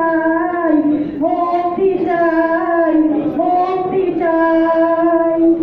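A single high voice singing a slow melody, holding long notes and sliding between pitches.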